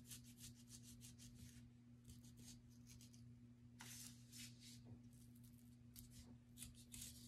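Faint, repeated scratchy strokes of a pencil tracing and pressing grooves into a styrofoam printing plate.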